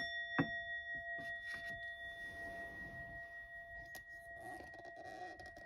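A Buddhist altar bell (rin), a brass bowl bell, struck once and ringing with a clear steady tone that fades slowly. A sharp knock just after the strike is the loudest moment.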